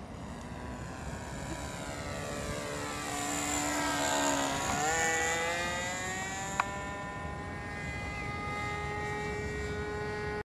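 Radio-controlled Sonic High Wing 25 model plane's O.S. .25 FX two-stroke glow engine flying past: the buzz grows louder, its pitch drops as the plane passes about four to five seconds in, then holds a steady lower note as it flies away. A single sharp click a little past the middle.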